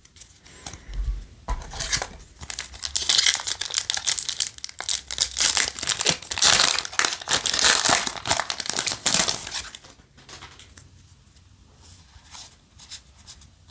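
Foil wrapper of a Yu-Gi-Oh! trading card booster pack crinkling and tearing as it is pulled open by hand, loudest in the middle stretch, then dying down to soft rustling near the end.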